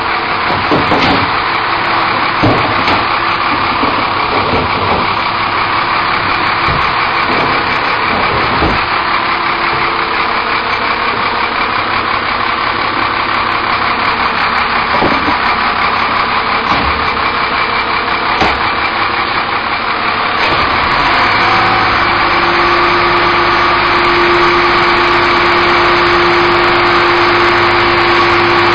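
Recycling truck's engine running at idle, with knocks and clatter from the side bin tippers in the first several seconds as the wheeled bins are loaded. About twenty seconds in the engine speeds up and a steady whine joins it as the hydraulic tippers raise and tip the 64-gallon bins.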